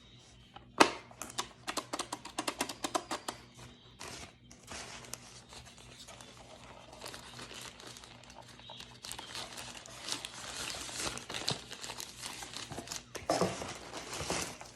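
A quick run of sharp clicks and taps about a second in, then packaging crinkling and rustling as it is handled and unwrapped, growing louder near the end.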